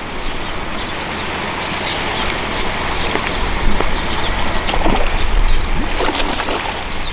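Steady low rumble of wind on the microphone, with scattered water splashes and gurgles that grow busier in the second half.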